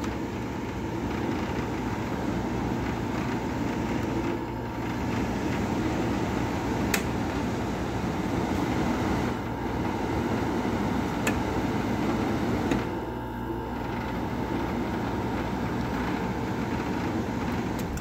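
Vintage room air conditioner running steadily, fan blowing and its Sanyo rotary compressor cooling, smooth and even, with a low hum. Two brief clicks, about seven and eleven seconds in.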